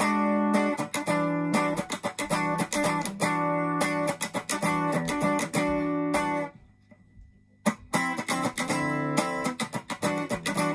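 Fender Japan ST62 Stratocaster electric guitar played through a Yamaha CO-01 compressor pedal and a Marshall Class5 amp, with picked and strummed chords and notes. The playing stops for about a second just past the middle, then starts again.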